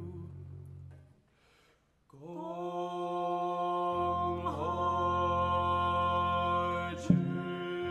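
Low sustained notes die away into a brief near-silence, then a singing voice holds one long, steady chanted note from about two seconds in. A low bowed double bass note enters beneath it about four seconds in, and a short sharp attack sounds near the end.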